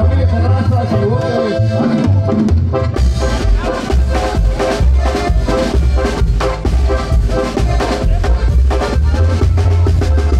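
Tamborazo band playing a dance tune: tambora bass drum and cymbal keep a steady beat under brass and reed melody. The bass drum drops out for a moment about two seconds in, then the full band comes back in with busy cymbal strokes.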